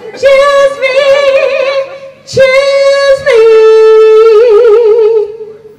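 A woman singing loudly through a handheld microphone, holding long notes with vibrato. A first phrase is followed, about two and a half seconds in, by a long held note that steps down in pitch partway and fades near the end.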